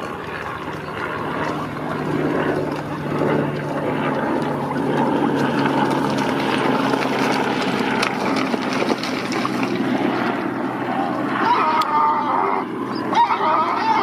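A steady low mechanical hum like an idling engine, with animal calls joining in during the last few seconds.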